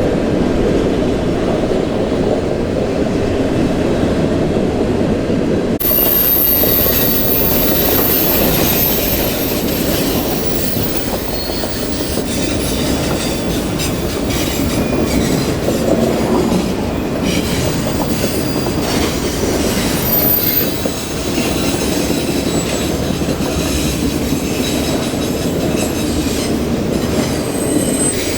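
Railcars rolling past on the near track: a steady rumble of wheels on rail, with thin, high-pitched wheel squeals coming and going from about six seconds in.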